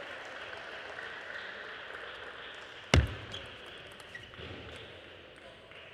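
Table tennis rally: short, sharp clicks of a celluloid-type ball off rubber-faced bats and the table top, over steady hall ambience. One much louder thump comes about three seconds in.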